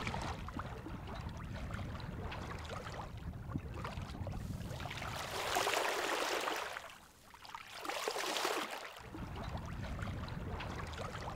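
Water rushing and splashing along the bow of a sailboat moving slowly under sail, over a steady low rumble. About five seconds in the splashing hiss grows louder for a couple of seconds, drops out briefly, then surges again.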